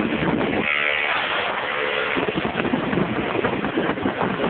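Motorbike engines and wind rushing over the microphone while riding down a street, with a steady engine tone standing out for a second and a half near the start.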